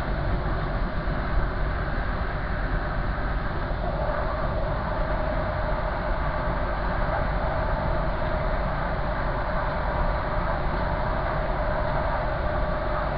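Train running at speed, heard from inside the front cab: a steady rumble of wheels on the rails, with a humming tone that grows stronger about four seconds in.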